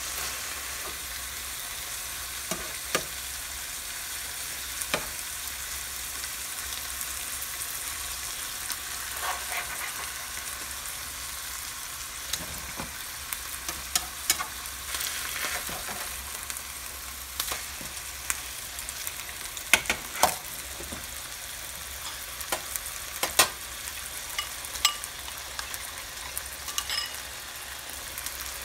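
Fish fillets sizzling in hot oil in a frying pan, a steady hiss, with scattered sharp clicks and scrapes of the spatula against the pan as the fillets are turned and moved.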